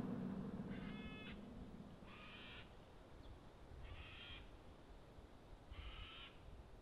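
A crow cawing four times, evenly spaced, each caw about half a second long.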